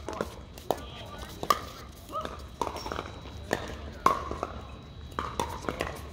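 Sharp pops of pickleball paddles striking a plastic ball, one every half second to a second, amid players' voices.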